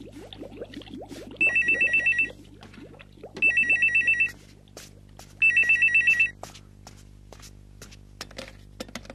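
A telephone ringing with an electronic trill: three rings about two seconds apart. Each ring is a rapid warble of two alternating high tones lasting just under a second.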